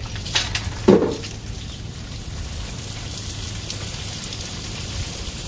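Spray of water falling and pattering onto a computer keyboard and concrete, like rain, with one short loud sound about a second in.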